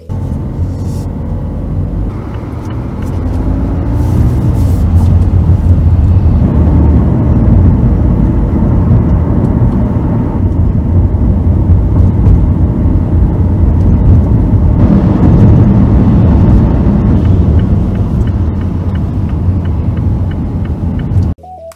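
Low road and engine rumble inside a moving car's cabin, growing louder about two to four seconds in as the car gathers speed, then holding steady. It cuts off suddenly near the end.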